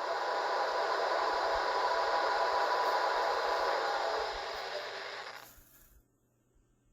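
O-gauge model subway train rolling on three-rail track, a steady whir of motors and wheels that dies away over the last couple of seconds.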